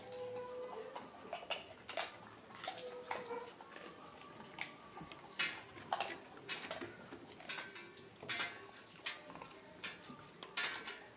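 A dog crunching and chewing crisp pork rinds (chicharrón): a string of irregular, sharp crackles and crunches.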